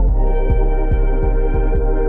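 Background music: held keyboard chords over a steady low beat, with a chord change right at the start.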